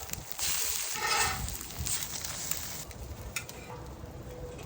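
Eggs frying and sizzling on a Blackstone propane flat-top griddle, with wind rumbling on the microphone and a couple of short clicks.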